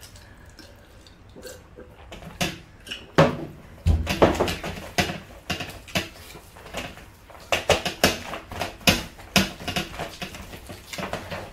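Hand-eating noises: fingers scraping and tapping rice across metal platters, with chewing and lip smacking. Quiet at first, then a fast, irregular run of clicks and smacks from about three seconds in.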